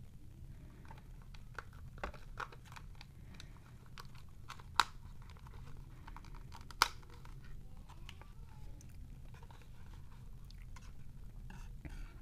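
Hard plastic clicks, taps and crackles from handling a Syma X5A quadcopter body and its small battery, with two sharp clicks about two seconds apart near the middle. A steady low hum runs underneath.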